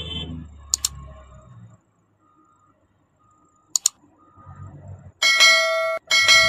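Sound effects of a subscribe-reminder animation: a quick double mouse click about a second in and another near four seconds, then a loud notification-bell ding at about five seconds and a second one just after six. A low engine rumble fades out within the first two seconds.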